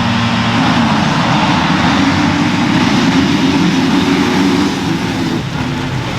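Motocross race engines running hard on the track, loud and steady, easing slightly near the end.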